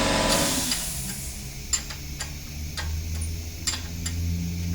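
A steady machine noise dies away about half a second in. It leaves a low hum, over which sharp clicks come about every half second.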